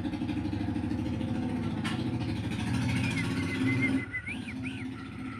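An engine running with a steady low pulse, growing louder and then easing off about four seconds in. A single sharp click comes about two seconds in.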